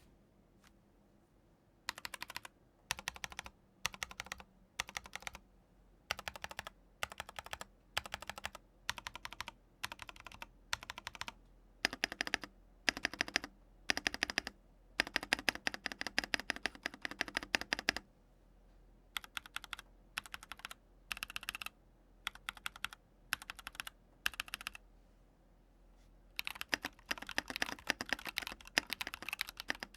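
Mechanical keyboard fitted with linear switches being typed on for a sound test: short clusters of keystrokes about every second, then longer runs of fast typing.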